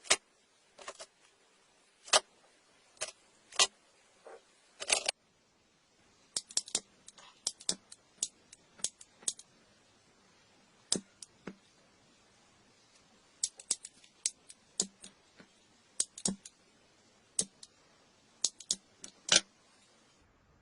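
A string of sharp, irregular clicks and taps from small objects being handled, coming in clusters with a couple of short pauses.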